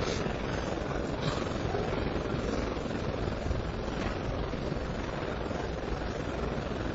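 Steady background hum and hiss of a hushed snooker arena.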